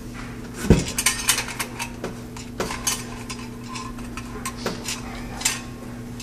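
Sheet-metal clicks, clinks and rattles as wire connections are pushed into a recessed light fixture's metal junction box and the box is handled, with a louder knock a little under a second in. A steady low hum sits underneath.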